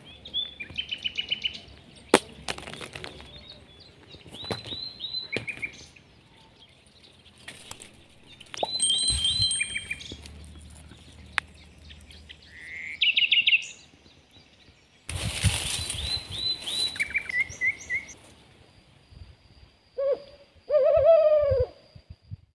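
Small birds chirping in short repeated phrases, with a few sharp clicks. Near the end, a rooster crows.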